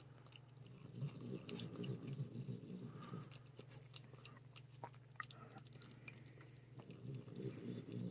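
A cat licking and chewing at a paste treat squeezed from a plastic tube: faint, irregular small wet clicks of tongue and teeth over a low steady hum.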